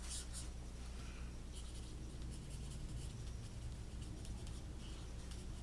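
Light Petal Pink Stampin' Blends alcohol marker scratching faintly across cardstock in many short strokes, filling in and saturating the paper with ink.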